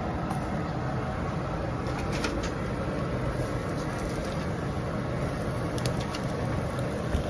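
Steady low background noise, with a few faint light ticks about two seconds in and again near six seconds as raw gyoza are set by hand into an oiled frying pan.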